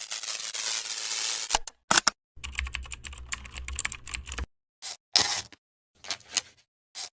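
Rewind transition sound effect: a hissing whir for about a second and a half, then a run of short, choppy clicking fragments broken by sudden silent gaps.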